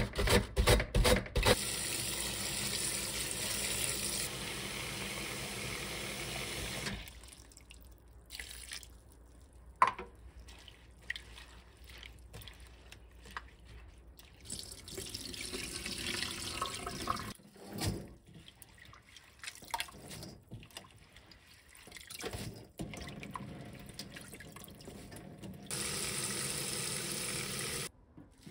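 Cabbage being shredded and rinsed: a few rapid strokes of a handheld slicer at the start, then tap water running into a stainless steel bowl for about five seconds. Hands then swish the shredded cabbage in the water with small splashes, and the tap runs again briefly near the end.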